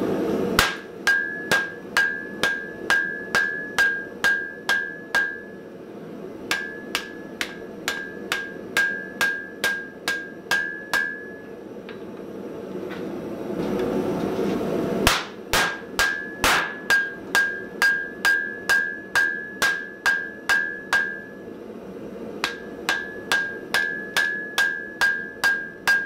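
Hammer blows on red-hot steel on an anvil, forge-welding a stacked Damascus billet into one piece. The blows come in four runs of about a dozen, two to three a second, and each strike rings at a clear high pitch. A steady rushing noise fills the short pauses between runs, loudest in the pause about midway through.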